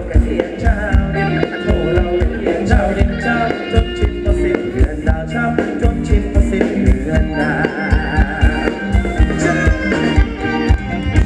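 Live Thai ramwong band music with a steady drum beat under held melody notes.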